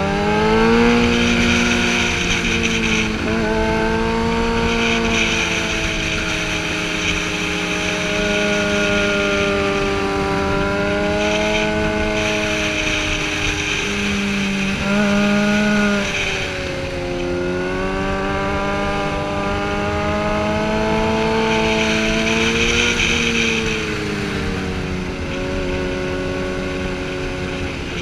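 Sportbike engine running hard through a series of curves, its pitch climbing under acceleration and dropping off as the throttle closes, several times over. Wind rushing past the helmet comes and goes.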